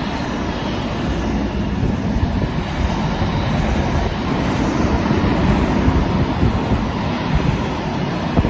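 Long freight train's wagons rolling past, a steady loud rumble with a few faint clicks near the end, and wind buffeting the microphone.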